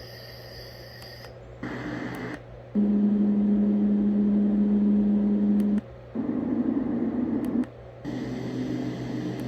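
White noise machine being switched from one built-in sound to the next, each playing for a second or three, with short breaks and faint clicks between them. The loudest is a steady low hum with a buzzing hiss over it, lasting about three seconds, starting a little under three seconds in.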